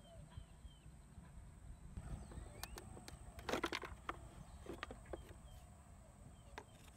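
Light plastic clicks and clacks of a scooter's battery terminal cover being unclipped and lifted out, a few short taps with the loudest cluster about three and a half seconds in.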